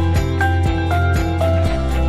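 Background music with a steady beat of about four strokes a second, held melody notes and a sustained bass line.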